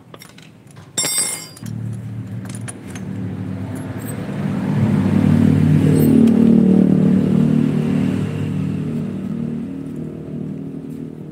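Yamaha RX-King two-stroke single-cylinder engine starting after a brief metallic clatter. It runs at idle, rises in revs for a few seconds around the middle, then settles back down.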